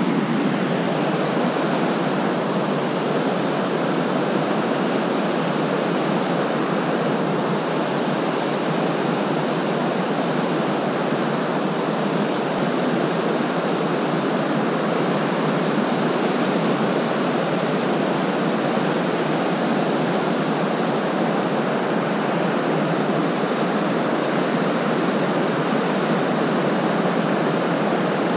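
River water rushing steadily over rock ledges and small rapids.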